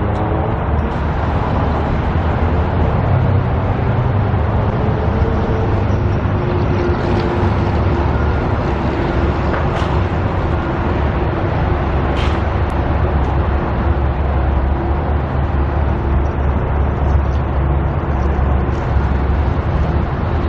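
Steady rumble of road traffic and vehicle engines, with a faint engine drone in the middle.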